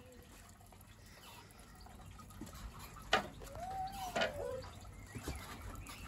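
Small garden water fountain bubbling and splashing over slate stones in a wooden half-barrel, disturbed by a hand in the spout. About halfway through come two sharp knocks a second apart, with a brief rising-and-falling tone between them.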